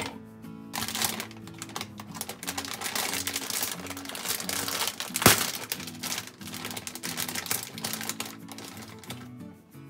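Kitchen work sounds over background music: rapid small clicks and rustling from utensils and food being handled, with one sharp knock about five seconds in.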